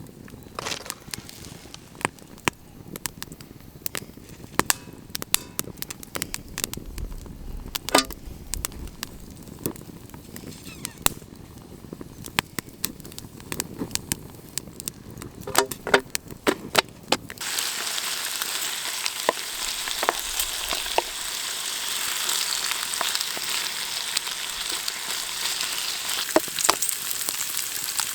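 Campfire crackling with scattered sharp pops. About two-thirds of the way in, a steady sizzle starts abruptly as bacon fries in a pan over the fire, and the pops keep on above it.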